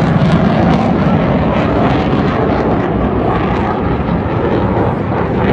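Fixed-wing aircraft flying past: a loud, steady engine rumble that eases slightly past the middle.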